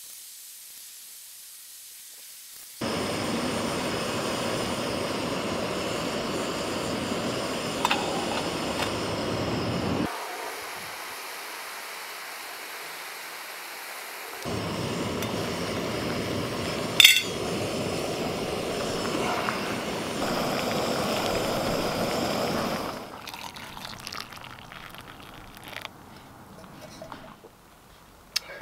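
Gas camping stove burner running at full power under a titanium pot, with the water inside rumbling and bubbling as it comes to the boil. The level jumps up and down abruptly several times, and there is one sharp clink midway.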